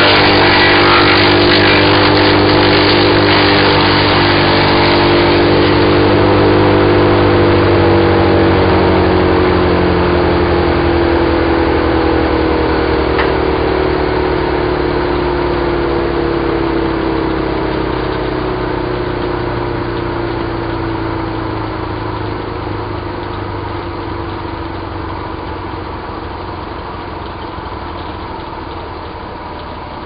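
BearCat CH8993H wood chipper running as the last balsam fir branches are fed through, then its engine slows: the pitch falls steadily over about fifteen seconds and the sound grows quieter, settling to a low idle.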